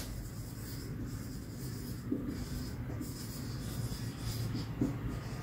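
Marker pen writing on a whiteboard: a run of faint strokes with brief pauses between them.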